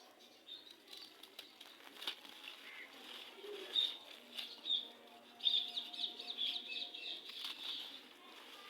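Gritty red sand crumbling and crunching in uneven crackly bursts, sparse at first and thickening into a dense run about five and a half seconds in.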